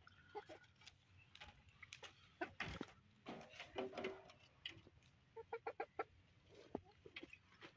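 Chickens clucking softly, with a quick run of short clucks about five and a half seconds in, and a few sharp taps in between.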